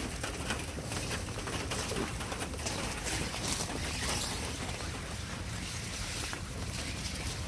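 Rain easing off after a downpour, falling on a greenhouse and the wet ground outside it: a steady hiss dotted with many small drop ticks.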